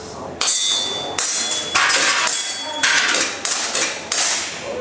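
Rapid string of gas airsoft pistol shots, about ten sharp cracks in under five seconds at uneven spacing as the shooter moves between targets. A couple of them carry a brief metallic ring.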